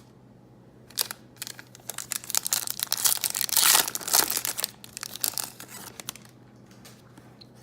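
A trading card pack wrapper being torn open and crinkled by hand, starting about a second in and loudest in the middle, then dying away.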